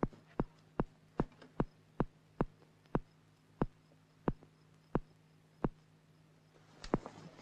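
Soundtrack heartbeat pulse: regular thuds over a low steady hum, slowing from about two and a half beats a second to roughly one every two-thirds of a second. Near the end a sharper click comes in with a rustle.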